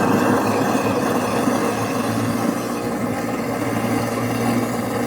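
Kitchen garbage disposal running steadily with water flowing through it, being flushed with boiling water: an even motor hum under the rush of water.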